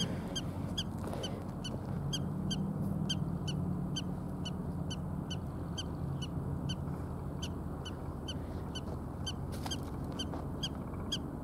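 Railroad warning bell ringing steadily at a little over two strokes a second, over a low steady rumble.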